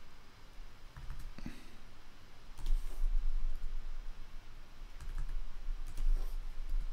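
Scattered clicks and taps of a computer keyboard and mouse, a handful of short sharp strokes spread over several seconds.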